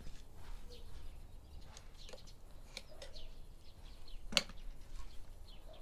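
A few light clicks and one sharper knock about four and a half seconds in, from a small outboard motor's oiled cast cylinder head being pressed and set down on a paronite gasket sheet to print the gasket outline.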